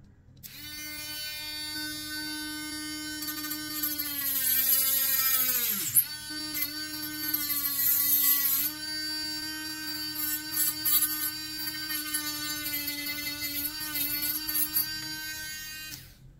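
Small hand-held rotary tool with a thin disc, its motor running with a high whine. As the disc bites into a plastic pen tip, the pitch sags and the motor nearly stalls about six seconds in, then spins back up, with a gritty hiss of cutting plastic during the heavy cuts. It switches off shortly before the end.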